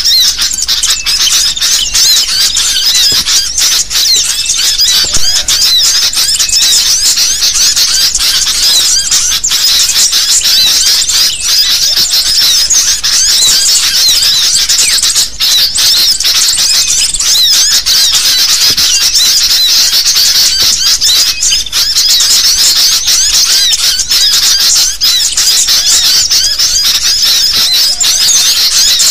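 Sooty-headed bulbuls (kutilang) chattering in a dense, loud chorus of many overlapping high chirps and squeaks, a bird-trapping lure call.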